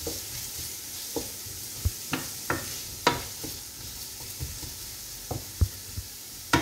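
Diced onions sizzling in hot oil in a frying pan while a wooden spatula stirs them, knocking and scraping against the pan every second or so. The onions are frying until soft.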